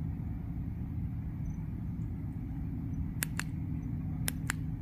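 A flashlight's tail switch clicks four times in two quick pairs, each a press and release, over a steady low background rumble.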